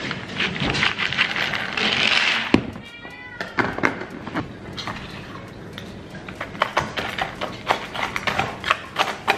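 Dry cat kibble rattling as it pours from a plastic jar into a pet bowl, then a cat meows once about three seconds in. After that comes a run of small clicks and scrapes as a spoon scoops wet food from a small can into the bowl.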